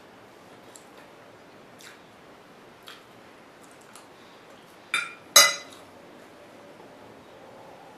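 Metal fork set down on a ceramic plate: two sharp clinks about five seconds in, the second louder and ringing briefly, after a few faint light clicks.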